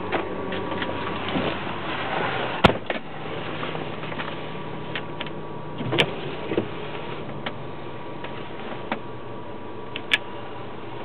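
Steady low hum inside the Lincoln Navigator's cabin, with several sharp clicks as dashboard radio buttons and knobs are pressed. The loudest clicks come about a quarter of the way in, midway, and near the end.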